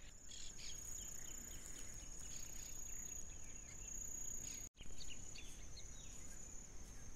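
Faint outdoor ambience with a steady, high-pitched insect trill held on one tone, broken by a brief dropout a little under five seconds in.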